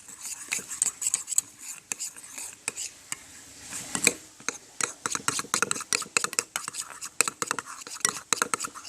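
Slime mixture being stirred in a container, a utensil clicking and scraping against its sides in quick, irregular strokes, with a short lull about two to three seconds in.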